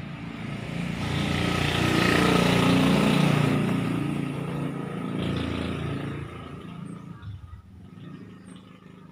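A motor vehicle passing close by: engine and road noise swell up over the first couple of seconds, peak, and fade away over the next few seconds.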